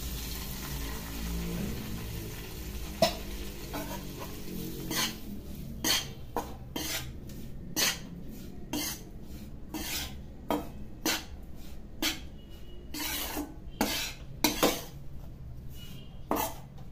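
Hot ghee poured into roasting wheat flour sizzles in an iron kadhai. From about five seconds in, a metal spatula scrapes and knocks against the pan about twice a second as the flour is stirred.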